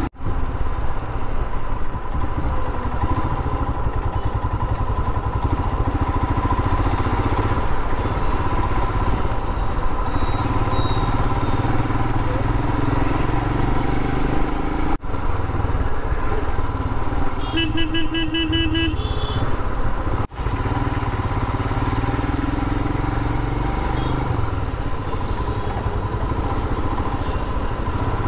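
Royal Enfield Himalayan's 411 cc single-cylinder engine running under way, with steady road and wind noise. About two-thirds of the way through, a vehicle horn beeps in quick pulses for a second or two. The sound drops out briefly twice.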